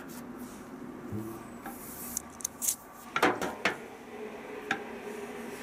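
Scattered clinks and knocks of washing machine parts being handled: a few sharp clicks about two seconds in, a cluster of knocks around three seconds in, and one more click near the end.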